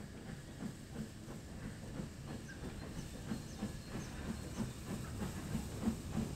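DR Class 99.23–24 2-10-2T metre-gauge steam tank locomotive working a train, its exhaust beating steadily about three times a second with steam hissing from the cylinders, growing slightly louder as it approaches.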